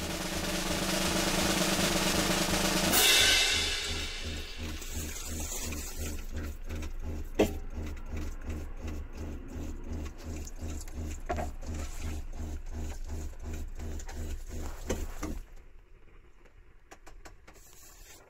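Background music with a steady drum beat. It opens with a loud swell that ends in a bright crash about three seconds in, and the music drops away about 15 seconds in.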